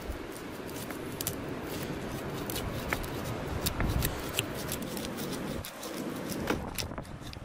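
Large knife cutting through the scaly skin and flesh of a big fish, giving a run of irregular crisp clicks and crunches.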